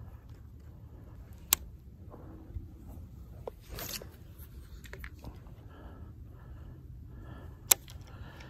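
Baitcasting reel in use: a brief rushing swish of line about four seconds in and two sharp clicks, about a second and a half in and near the end, over a steady low rumble.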